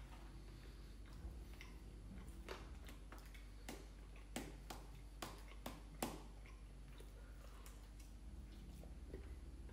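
Chewing crunchy KFC fried chicken: quiet chewing with a handful of sharp crunches, the loudest about four to six seconds in.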